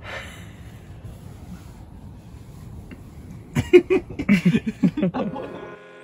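A person laughing: a run of short chuckling bursts beginning about three and a half seconds in and dying away about a second and a half later.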